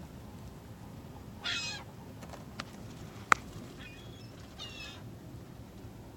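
Two short harsh calls from water birds, about a second and a half in and again near five seconds, with fainter calls just before the second. A sharp click, the loudest thing here, falls between them.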